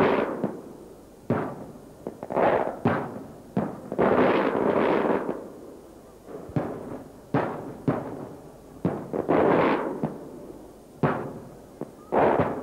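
Traditional Maltese festa aerial firework shells bursting overhead: about a dozen sharp bangs at irregular intervals, each followed by a rolling echo, a few coming close together.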